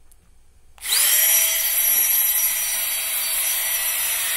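Small electric inflator pump switched on about a second in. Its motor whine rises quickly to speed, then it runs steadily with a rush of air as it blows through a rifle barrel to cool it.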